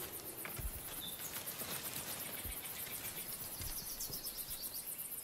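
Outdoor natural ambience: a steady, fast insect trill with a few faint bird chirps and scattered soft knocks.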